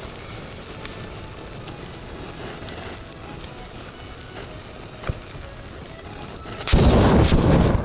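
Burning tower of matches and disposable lighters crackling, with a few sharp pops. Near the end comes a sudden loud rush lasting about a second: a heated butane lighter bursting and venting burning gas.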